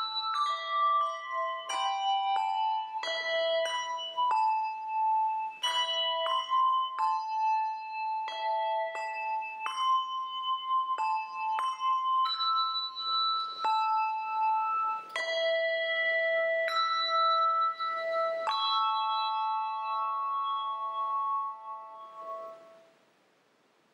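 A handbell choir ringing a piece, chords of struck bell tones following one another and ringing on. Near the end the last chord fades out.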